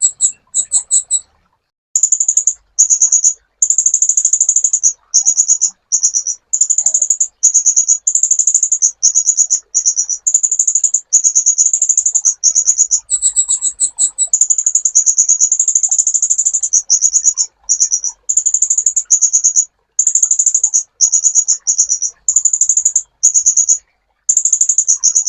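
Sunbird song: a long run of very high, rapid trilled phrases, one after another with only brief pauses. A few phrases, around a second in and about thirteen seconds in, jump slightly higher in pitch.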